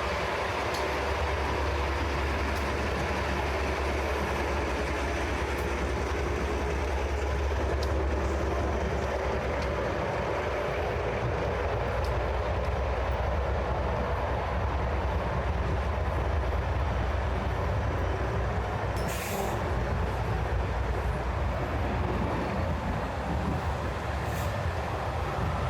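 Steady low rumble of a subway train running beneath the street, mixed with city traffic hiss. A short sharp hiss comes about 19 seconds in, and a briefer one near the end.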